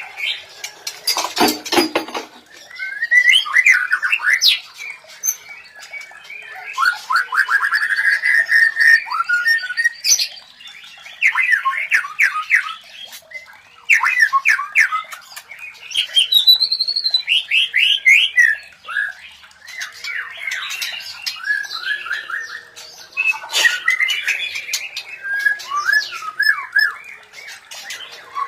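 White-rumped shamas calling during mating: rapid chattering runs of short repeated notes, harsh squawks and quick varied song phrases, with a harsh noisy burst about a second in. These are the mating calls used to stimulate breeding condition in other shamas.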